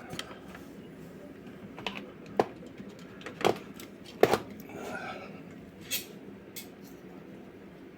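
About half a dozen scattered sharp clicks and knocks of small plastic items being handled, the loudest about four seconds in, as a charger and the earbud charging case are set up.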